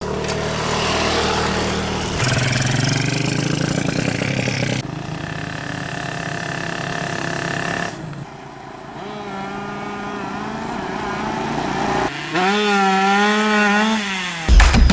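Two-stroke 130cc underbone motorcycle engine revving, heard in short edited clips that cut abruptly every few seconds, its pitch rising and falling with the throttle in the last clip.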